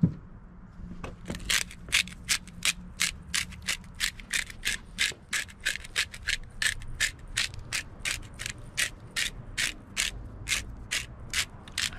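Hand-twisted spice grinder grinding salt and pepper: a steady run of sharp ratcheting clicks, about three a second, starting about a second in.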